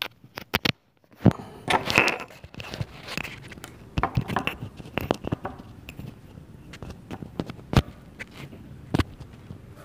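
A clip-on lavalier microphone and its cable being handled and clipped onto a shirt. The sound is rustling and scraping, with sharp clicks at irregular moments and a brief drop-out about a second in.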